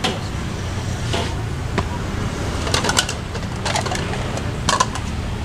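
Metal spatula scraping and clinking against a steel wok as fried rice is stir-fried, in a handful of irregular sharp strokes, over a steady low rumble.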